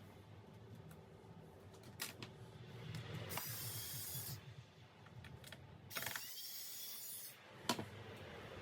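Small plastic-and-metal clicks and short scraping hisses from parts being handled and worked on a Dell Inspiron 3593 laptop, typical of taking the laptop apart; the loudest click comes near the end.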